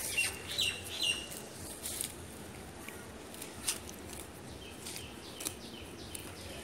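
Small birds chirping in short falling notes, most of them in the first second, with scattered crisp ticks and rips of a cow tearing grass as it grazes.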